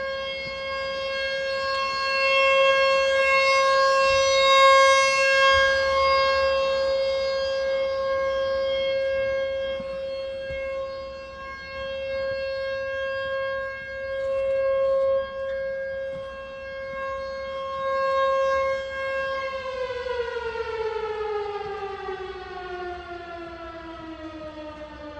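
American Signal T-128 outdoor warning siren sounding a test at one steady pitch, its loudness swelling and fading every few seconds. About twenty seconds in it winds down, the pitch falling steadily.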